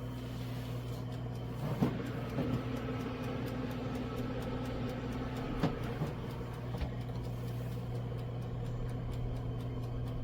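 Countertop air fryer toaster oven running: a steady convection-fan hum with a fine, regular ticking, typical of its dial timer counting down. A few light knocks sound about two seconds in and again past the middle.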